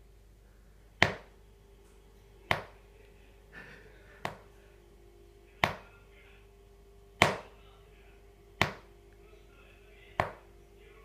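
Fingers knocking on a hard surface: seven sharp single knocks, about one every second and a half, at a slightly uneven pace.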